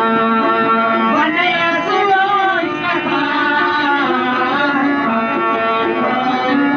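Kalaam (devotional poetry) sung by a voice over a sustained instrumental accompaniment, the voice gliding through ornamented phrases about a second in and holding the melody against the steady backing.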